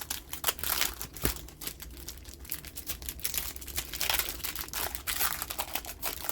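Hecatomb trading card booster pack wrapper crinkling as it is handled, a dense run of irregular crackles and small clicks.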